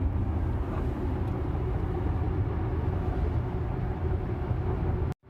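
Steady low road and tyre rumble inside a moving Tesla's cabin at highway speed, with no engine note from the electric drive. The sound cuts out completely for a moment near the end.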